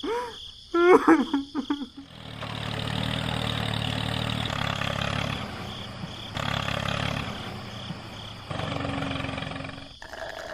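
A couple of short gliding vocal exclamations, then a steady engine-like running sound with a low hum that shifts in level a few times and stops near the end.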